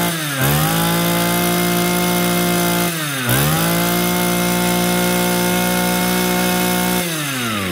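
Shindaiwa brush cutter's two-stroke engine revving high on test, briefly dropping twice and climbing straight back, then falling away toward idle near the end. It revs smoothly and evenly.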